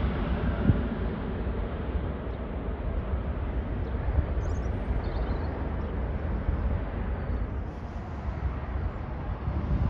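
Twin-engine widebody jet airliner climbing away after takeoff: a steady low rumble of jet engines that slowly fades and loses its higher tones as the aircraft recedes.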